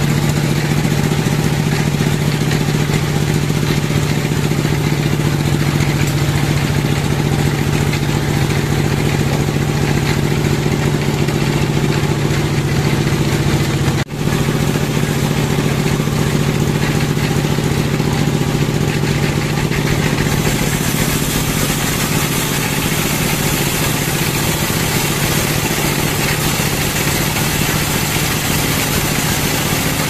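Band sawmill running steadily with a strong hum as its blade saws lengthwise through a log. There is a brief dropout about halfway through, and a brighter hiss comes in about two-thirds of the way through.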